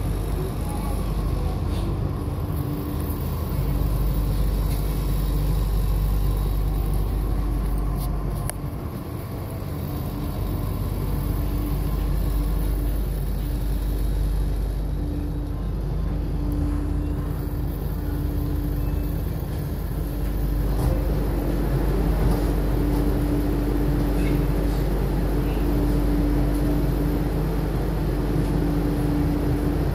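Delhi Metro train heard from inside the coach: a steady low rumble and running noise with a constant hum throughout. By the end the train has stopped at a station with its doors open.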